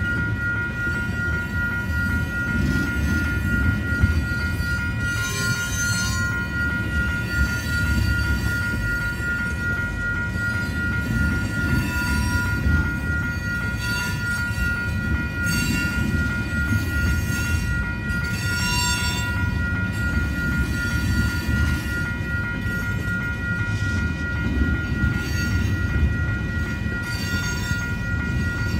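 Oil tank cars of a freight train rolling past, wheels rumbling steadily on the rails, with short wheel squeals three times. A level-crossing warning bell rings steadily over it.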